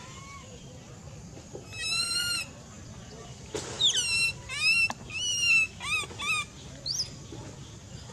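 Baby long-tailed macaque crying: a run of high, wavering screams, one long cry about two seconds in, then a quick string of shorter, falling cries, crying from hunger as the uploader has it.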